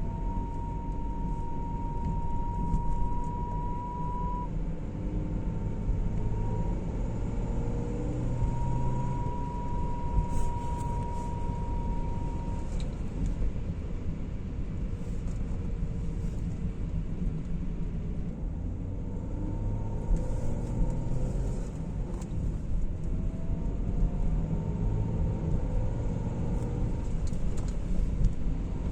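BMW E39 running with a whistle from the front end. The whistle is a steady tone over a low rumble, clear for the first few seconds and again a few seconds later, then fainter and wavering in pitch. Its cause is unknown; the owner is asking what it might be.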